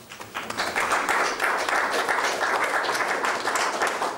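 Audience applauding, rising about half a second in and then holding steady.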